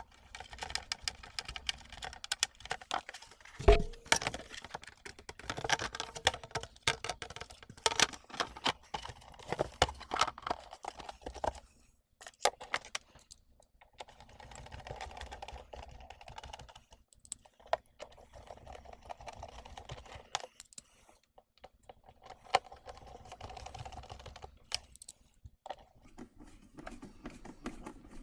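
Irregular clicking and tapping of plastic casing parts and tools being handled as a Revitive foot circulation machine is screwed back together, with one louder knock about four seconds in and a few short rasping stretches.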